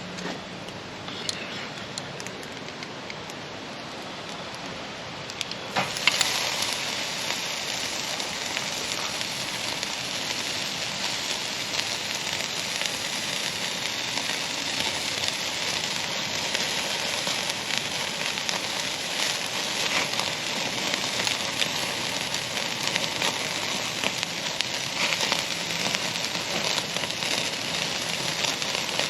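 Ribeye steak sizzling on a hot grate over a charcoal fire. Before that there is a softer hiss and crackle of the fire; about six seconds in the steak goes down with a sharp click and the sizzle jumps up, then holds as a steady dense hiss with fine crackles.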